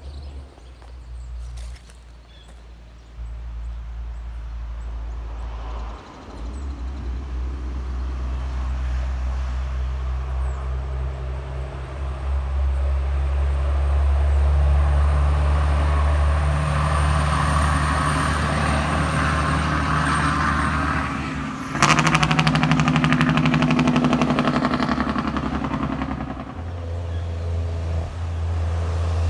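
Heavy truck's diesel engine approaching, growing steadily louder. About three-quarters of the way through it breaks suddenly into a loud, fast rattling, then eases back to a lower, steady running.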